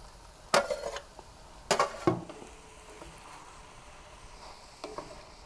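Browned pork chunks and onions pushed off a metal tray with a slotted spoon into a cast-iron Dutch oven, with a few sharp clatters of metal on the pot in the first two seconds, then a wooden spatula stirring the meat and mushrooms.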